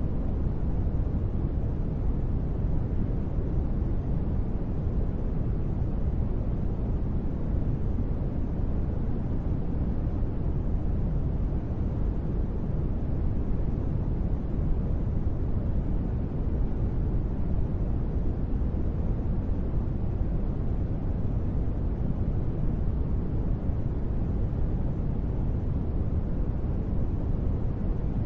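Steady, unbroken noise from a sleep white-noise track made as gentle rain, its weight deep and low with little hiss on top and no separate drops or patter.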